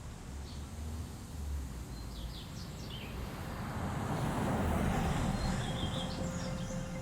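Outdoor street ambience: a steady low traffic rumble that swells about halfway through, with small birds chirping briefly several times.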